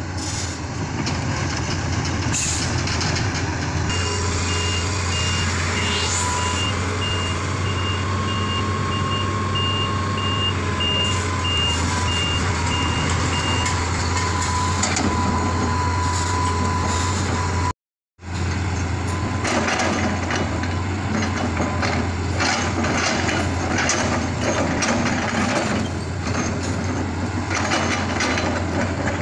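Hitachi Zaxis 200 excavator's diesel engine running steadily under hydraulic load as its grapple handles rubberwood logs. A reversing alarm beeps at an even rate from about four seconds in until past the middle. In the second half there are many short knocks and clatters of logs, after a brief dropout in the sound.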